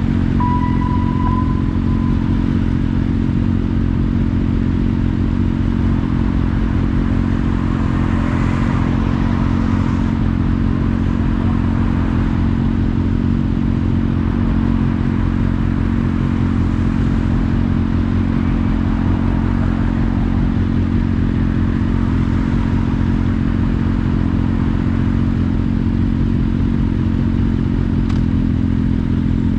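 Kawasaki Ninja ZX-10R inline-four engine running at a steady pitch while the bike is ridden, heard from on the motorcycle. A brief high tone sounds about a second in.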